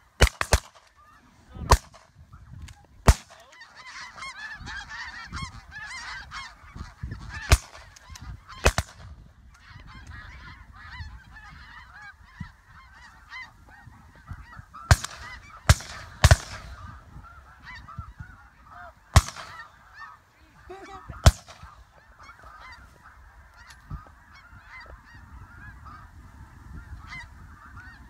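A flock of snow geese calling, a dense, continuous chorus of honks. About a dozen sharp, loud bangs cut through it, spread irregularly through the first two-thirds, and are typical of shotgun shots at the passing geese.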